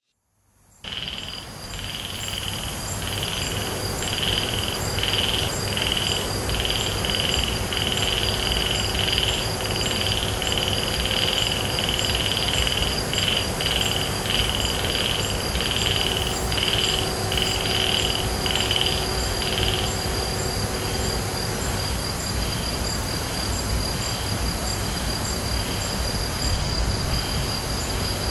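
Night chorus of insects and frogs. One call pulses about twice a second and grows faint about two-thirds of the way through, while high steady trilling runs above it and a low steady hum sits underneath.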